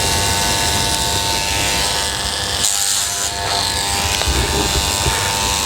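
Wahl electric hair clippers fitted with a clipper guide running steadily while cutting through the side of a boy's hair.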